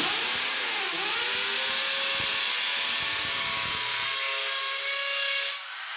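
Yellow corded electric drill running and boring into a wall to make a mounting hole. It starts suddenly, its pitch dips and recovers about a second in, then it runs steadily and briefly eases off near the end.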